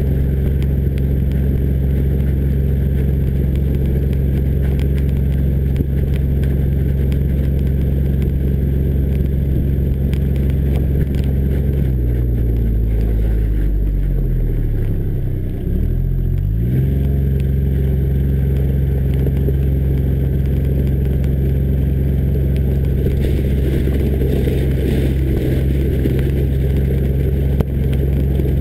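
John Deere Gator 855D's three-cylinder diesel engine running steadily as the vehicle drives. About halfway through the engine note falls for a few seconds as it slows, then climbs quickly back to its steady pitch.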